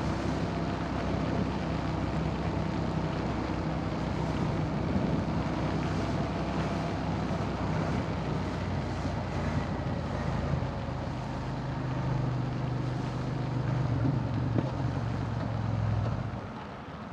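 Wind rushing over the helmet camera and wet-road noise while riding a Suzuki SV650S at speed, over the steady low hum of its V-twin engine. About a second before the end, the noise drops away.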